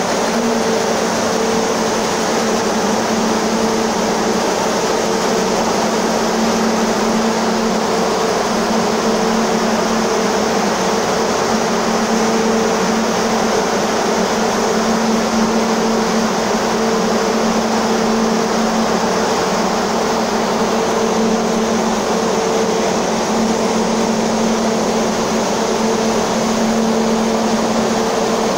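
TECO corn dryer running, its burner and large blower fan giving a steady rushing noise over a steady low hum.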